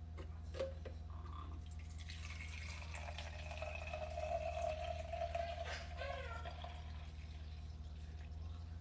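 Breast milk being poured from a breast pump cup into a container: a liquid trickling and filling sound with a held tone from about three to six seconds in, over a steady low hum.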